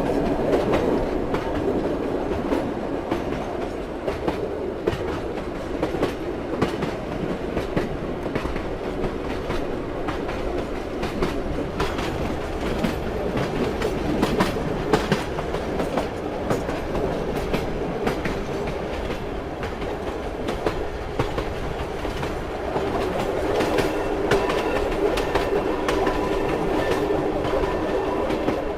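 Train running steadily: the wheels click irregularly over rail joints under a constant rumble. About three quarters of the way through, a droning tone grows stronger.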